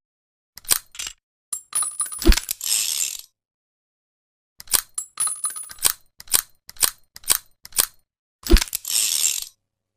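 Handling and reloading of a .357 revolver between shots: sharp metallic clicks, then a cluster of ringing metallic clinks with a thump, like spent brass being dumped from the cylinder. After a pause comes a run of evenly spaced clicks, about three a second, and another thump with clicks near the end.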